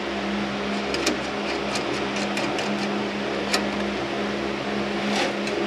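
Steady mechanical hum of a running motor, with a few light metallic clicks of tools and link hardware being handled.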